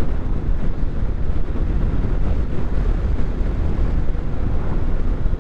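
Steady wind buffeting the microphone over the low, continuous drone of a vehicle on the move.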